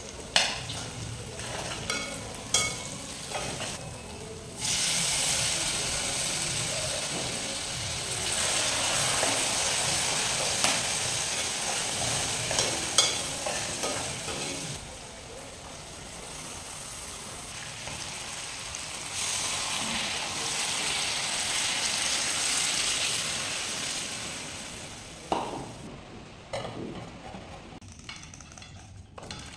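Soup cooking in a metal pot on a portable gas stove: a steel ladle stirs and clinks against the pot several times, and the pot sizzles loudly in two long stretches, each starting and stopping abruptly.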